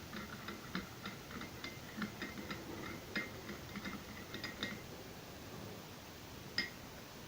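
A metal spoon stirring a hot turmeric and black pepper drink in a cup, clinking quickly and lightly against the sides at about three or four clinks a second. The stirring stops a little past halfway, and one more clink comes near the end.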